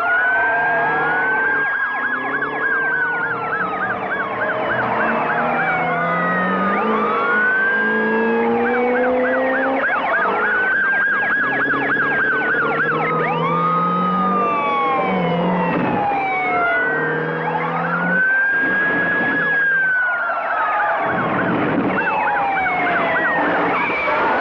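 Several police sirens going at once, overlapping wails and rapid yelps whose pitch drops as they pass by. Lower revving car engines run underneath, as in a city police chase.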